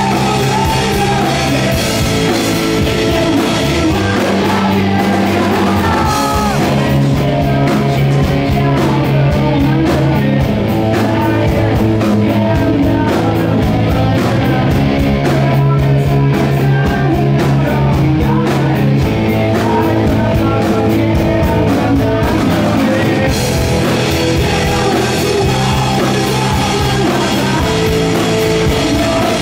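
Rock band playing live: a male lead vocalist singing over distorted electric guitars, bass guitar and drums.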